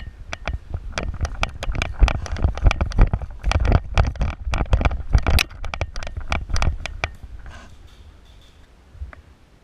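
Rapid, irregular clicks and knocks over a low rumble, dying away after about seven seconds.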